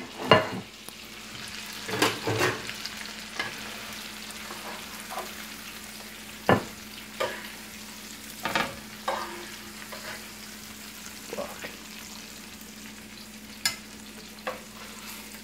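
Frying pan of butter and pan juices still sizzling steadily while seared chicken breasts are lifted out, with about ten sharp clinks and knocks of the utensil against the pan and the ceramic plate, the loudest two seconds in and near the end.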